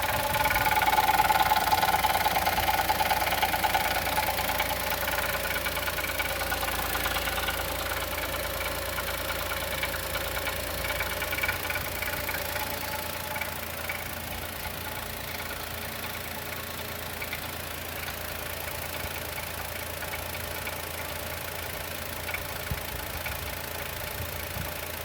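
Chevrolet Onix 2020 naturally aspirated three-cylinder engine idling cold with a steady knocking, growing gradually quieter. The owner says it sounds like a hydraulic valve lifter or a piston pin knocking, and expects it to stop once the engine warms up.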